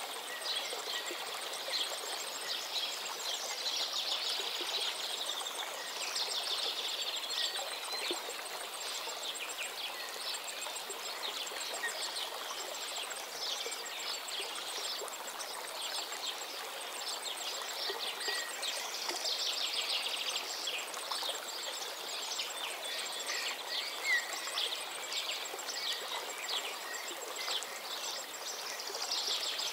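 Nature ambience: many small birds chirping and twittering over the steady rush of running water.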